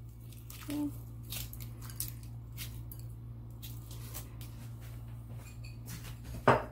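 Raw shell-on shrimp being handled and pushed down into a pot of seafood: soft, wet squishing and small crackles of shells, irregular throughout, over a steady low hum. There is one sharper knock near the end.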